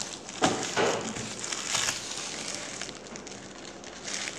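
Crackling rustle of plastic wrapping being handled, with two light knocks in the first second.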